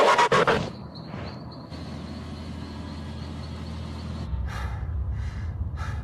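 Mercedes-Benz E-Class making an emergency stop under Brake Assist: a loud burst with a rapid run of clicks that cuts off about half a second in. A quieter stretch with a faint steady high tone follows. From about four seconds in there is a low rumble with short breaths repeating about every two-thirds of a second.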